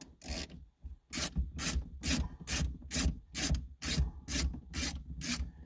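Screwdriver with a T20 Torx bit backing out a radio mounting screw in a 2013 Volkswagen Golf dash, in repeated turning strokes, with a short rasping click on each stroke about twice a second.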